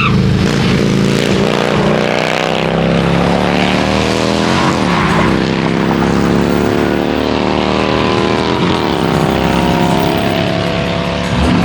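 Car engine revving hard and held at high rpm, its pitch wandering up and down, with two quick drops and recoveries in revs about four and a half and eight and a half seconds in.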